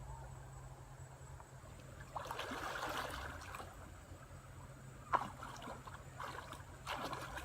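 Water sloshing and splashing in irregular bursts, beginning about two seconds in and again near the end, with one sharp click about five seconds in.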